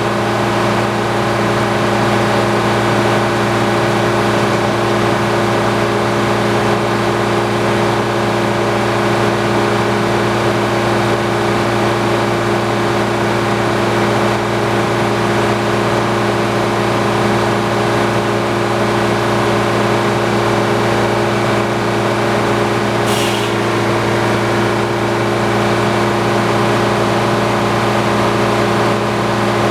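Antique sawmill running at a constant speed, a steady engine drone with no change in pitch or load. A single short click about 23 seconds in.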